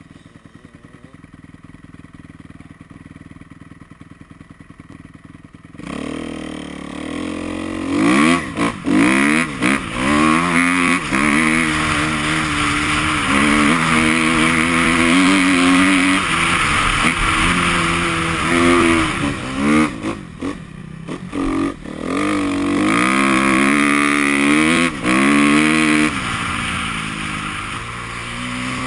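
Motorcycle engine idling, then about six seconds in revving hard and accelerating. Its pitch climbs and drops again and again through the gears, with a few brief throttle cuts.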